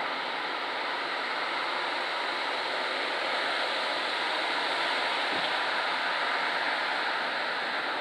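Wind blowing steadily through a leafy tree, the leaves rustling in an even rushing hiss.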